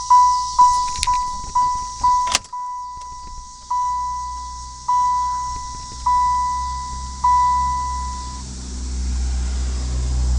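GM seatbelt warning chime module dinging a single clear tone, rapidly at first and then more slowly, before it stops about eight seconds in. A sharp click comes about two seconds in, and a low rumble rises near the end.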